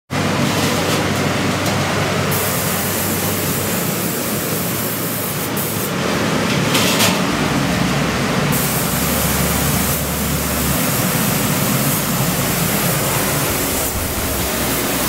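Paint spray gun hissing, its trigger pulled in passes of about two seconds, over the steady rush of paint booth air.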